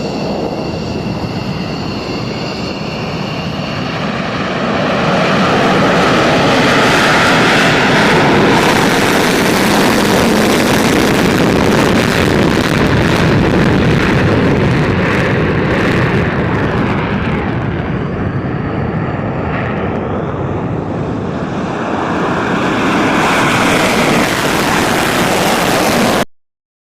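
Fighter jet engine noise, dense and loud, with a high whine at first. It swells about five seconds in, eases in the second half, rises again and cuts off abruptly near the end.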